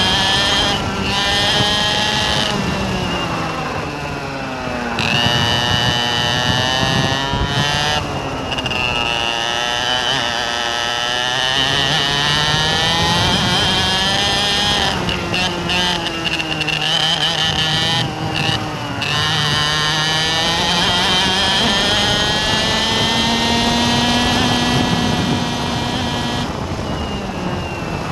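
A vehicle engine driven hard, its pitch repeatedly climbing and then falling or dropping suddenly, several times over, with a high whine above it.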